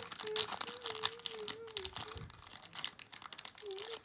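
Homemade slime being squished and mixed by hand, giving a run of quick crackling, clicking sounds.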